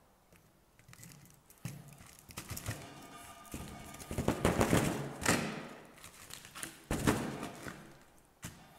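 Cast concrete scraping and crunching against a PLA 3D-printed mold as the slab is pried out, crumbling at the edges, with a sharp knock about seven seconds in.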